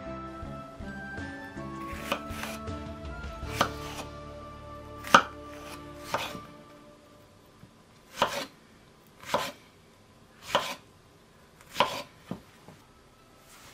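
Soft background music with a few clicks over the first half, then a kitchen knife cutting strawberries on a wooden board: five single cuts a little over a second apart, each a short knock of the blade through the fruit onto the wood.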